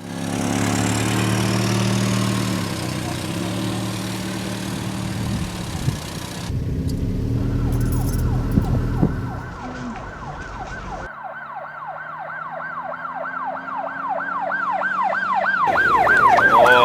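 A car running along the road, then a police siren wailing, its up-and-down sweeps speeding up into a fast yelp and growing louder near the end.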